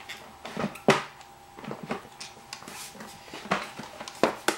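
Hard plastic housing of a Back2Life machine being pulled and pried at by hand, its clipped-on end piece not releasing: a series of irregular plastic clicks and knocks, the loudest about a second in.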